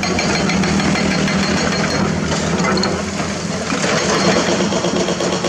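A heavy excavator's diesel engine runs steadily under load, with a rapid clattering over it, as the machine breaks hard limestone.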